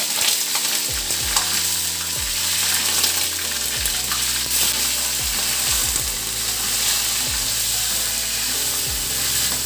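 Food sizzling steadily as it fries in hot oil in a kadai, with a spatula stirring and scraping now and then.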